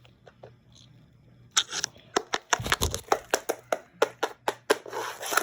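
Plastic LEGO pieces knocking and clicking as the toys are handled and moved about: a rapid, uneven run of sharp clicks starting about a second and a half in, with a dull thump near the middle.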